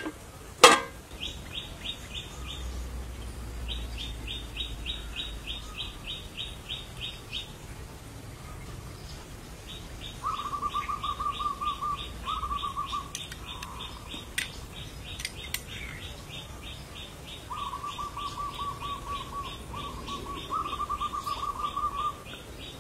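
Birds calling outdoors: a high chirp repeated about four or five times a second in long runs, joined from about ten seconds in by lower, buzzy trills in short bursts. Two sharp knocks sound at the very start.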